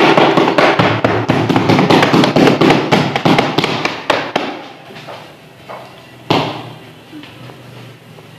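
Small audience applauding, a dense patter of hand claps that fades out about four to five seconds in. A single sharp knock follows a couple of seconds later.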